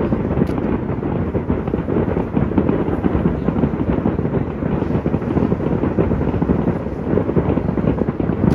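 Large fireworks display across a river, heard from a distance as a dense, continuous rumble of overlapping shell bursts.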